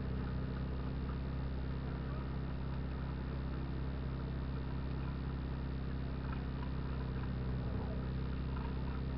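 Off-road vehicle's engine running steadily at constant revs with a low, even hum, during a recovery pull on a stuck vehicle.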